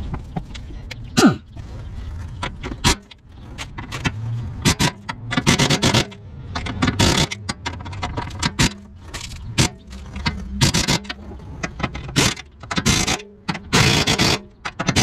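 Hand socket ratchet clicking in about a dozen short, irregular bursts as the four engine-mount bolts are tightened down.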